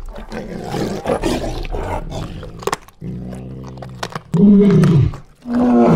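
Tiger sound effect: a few seconds of crunching, tearing eating noises, then a low growl about three seconds in, followed by two loud roars that each fall in pitch near the end.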